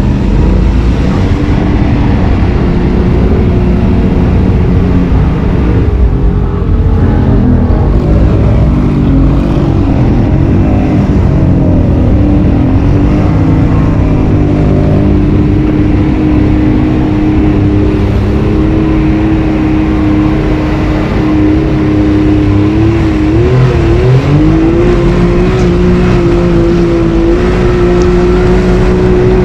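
Side-by-side UTV engine running under way while driving through flooded, muddy trail, with water and mud noise throughout. The engine note wavers, then climbs sharply about 24 seconds in and holds at higher revs to the end.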